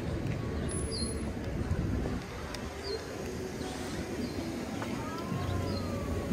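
City street noise with a steady traffic hum. A short high chirp repeats about once a second, and a faint tone dips and rises near the end.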